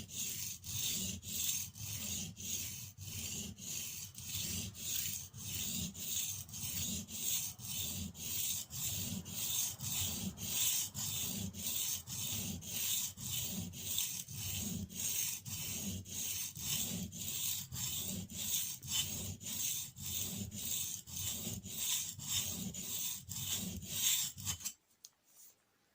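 Steel spokeshave blade rubbed up and down on a water-soaked combination whetstone, with a steady rasping scrape at about two strokes a second; the strokes stop abruptly near the end.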